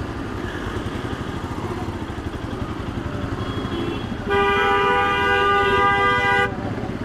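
Bajaj Pulsar RS200's single-cylinder engine running at low speed in slow traffic. Just past the middle a vehicle horn sounds one steady held note for about two seconds, louder than the engine.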